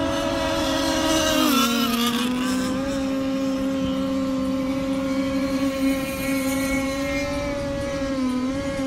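Speedboat engine running hard at a steady pitch, with a rush of water and wind. The engine note dips briefly about one and a half seconds in and again near the end, then recovers.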